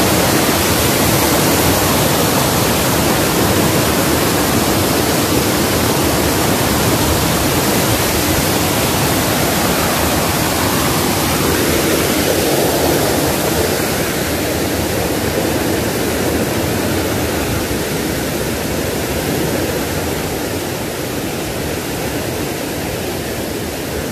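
A small waterfall and the rapids below it, white water rushing steadily over rocks, loud and close. The rush grows a little quieter over the second half.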